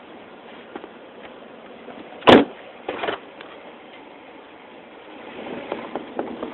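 A single loud thump about two seconds in, followed by a smaller knock, over a steady hiss; a rougher rustling noise builds near the end.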